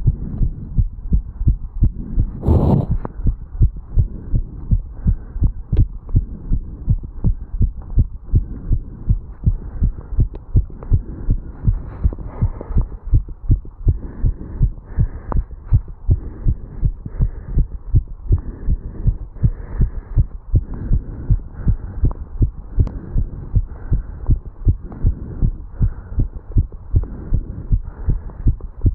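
Human heartbeat picked up at the chest over the mitral valve area: a steady train of regular low beats, still raised after jogging up stairs. A short burst of noise cuts across it about two and a half seconds in.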